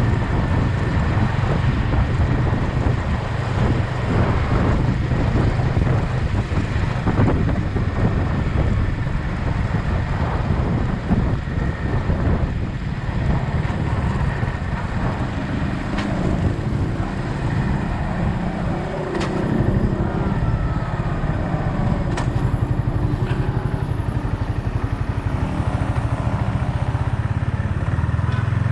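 Yamaha XSR 155's single-cylinder four-stroke engine running as the motorcycle is ridden, heard as a steady low rumble with a continuous noisy haze over it.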